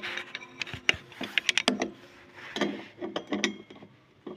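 A run of sharp clicks and knocks, quickest about a second and a half in, followed by a few softer clatters: small hard objects or tools being handled.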